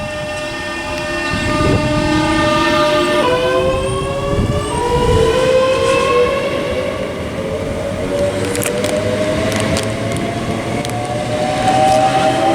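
Pair of Class 365 electric multiple units accelerating away from a station. The traction motors give a whine of several tones that climbs steadily in pitch, with a sudden step in the tones about three seconds in, over rolling rumble. A few sharp clicks come near the end.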